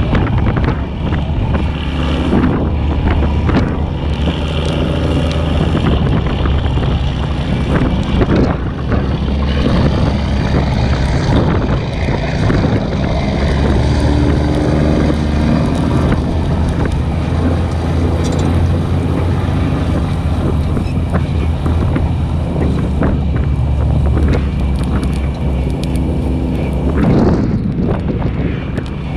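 Brush truck's engine running steadily as the rig moves along the fire line, with wind buffeting the hood-mounted camera's microphone.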